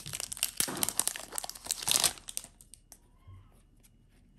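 Foil wrapper of a Yu-Gi-Oh booster pack crinkling as the torn-open pack is handled and the cards are pulled out. The crinkling stops a little over halfway through, leaving only a few faint ticks.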